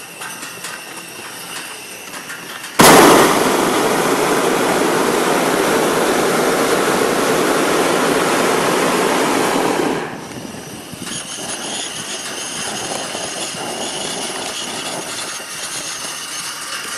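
Hot-air balloon's propane burner firing: a loud, steady blast that comes on suddenly about three seconds in, holds for about seven seconds, then shuts off.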